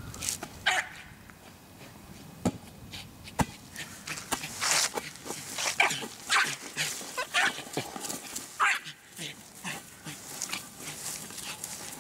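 American Eskimo dog barking and yipping in short, irregular bursts, with two sharp knocks a few seconds in.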